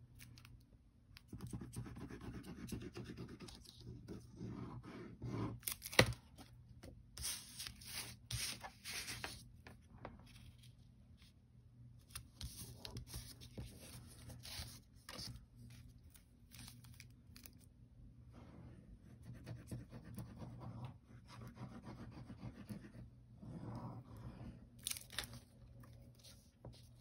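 Paper and cardstock being handled on a cutting mat: soft rustling, sliding and light taps, with one sharp click about six seconds in.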